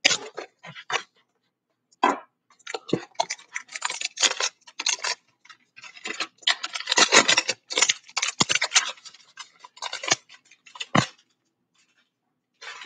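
Plastic shrink-wrap on a cardboard box of trading cards being slit with a knife and pulled off: irregular bursts of crinkling and scratching, with a couple of sharp knocks near the end.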